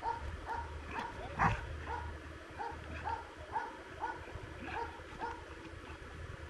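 A Belgian Malinois barking at a protection-sport helper in an even, unbroken run of short barks, about two a second. This is the bark-and-hold in front of the helper during RCI protection work.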